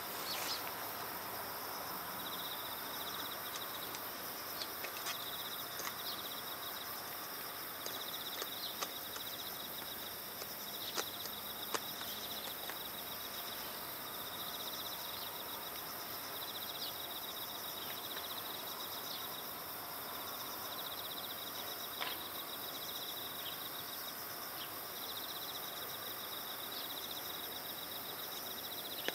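Insects trilling in repeated high-pitched phrases of a couple of seconds each, over a steady outdoor hiss, with a few brief clicks.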